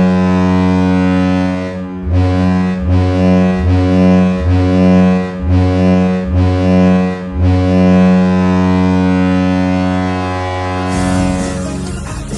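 Hockey arena goal horn: one long, low blast, then about six short blasts roughly a second apart, then another long blast. About eleven seconds in, the horn stops and the goal song music starts.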